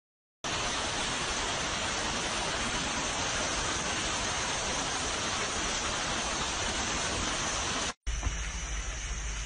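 A steady, even rushing hiss that starts abruptly just after the start. It breaks off briefly about eight seconds in and returns as a rougher hiss over a low steady hum.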